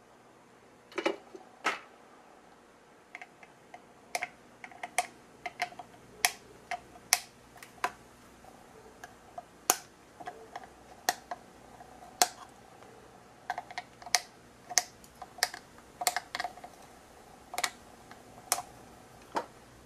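Flush cutters snipping protruding component leads off a circuit board, one lead after another: a long series of sharp clicks, irregularly spaced, sometimes two or three close together.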